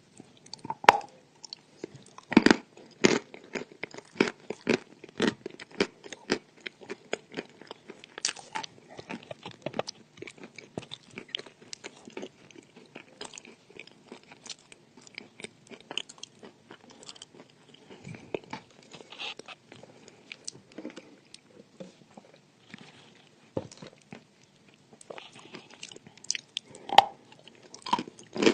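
Crunchy edible chalk being bitten and chewed: a dense run of crisp crunches, with louder bites about two and a half seconds in and again near the end.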